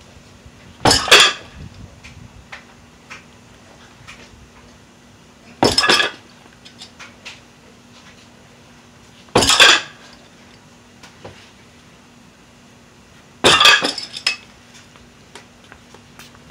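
Stacked iron weight plates clanking against each other and the loading pin as a 155 lb Rolling Thunder stack is lifted and set down. There are four loud clanks, each with a short metallic ring, spaced about four seconds apart.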